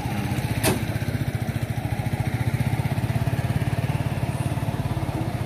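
Motorcycle engine idling close by with a steady, even putter, and a brief sharp click under a second in.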